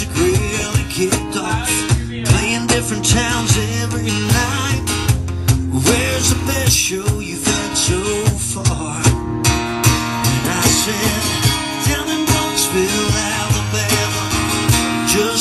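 Live acoustic music: an acoustic guitar strummed through chords while a cajon is slapped in a steady beat.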